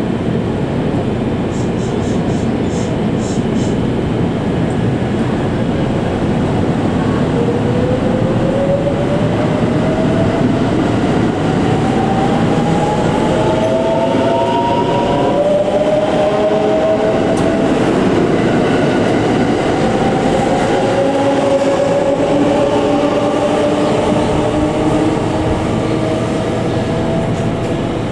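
A JR 681 series electric multiple unit pulling away and gathering speed. Its VVVF inverter traction motors give a whine in several tones that climb in steps, over steady wheel and running noise.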